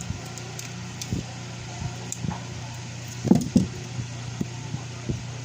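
Scattered small knocks and taps of parts and wires being handled on a work surface, the loudest two about three and a half seconds in, over a steady low electrical hum.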